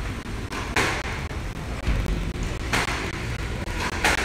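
Squash ball being struck hard by rackets during a rally: three sharp cracks, each followed by a short ring, spaced a second or two apart, over a steady low rumble.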